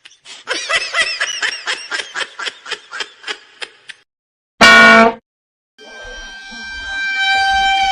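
Comedic sound effects: a quick, pitched cartoon-style laugh of rapid bursts fading out, then a sudden very loud short honk about five seconds in, then a steady horn blast that swells in and holds near the end.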